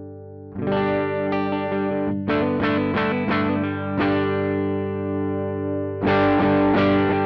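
Electric guitar played through a Joyo American Sound amp-simulator pedal, which emulates a Fender Deluxe amp: picked chords ringing out in a rhythmic pattern, with a fresh, louder strum near the end.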